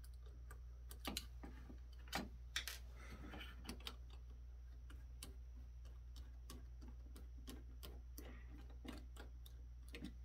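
Faint, scattered clicks and taps of hands handling wires and small parts inside an open metal rack-mount chassis, with a few louder knocks in the first three seconds, over a steady low hum.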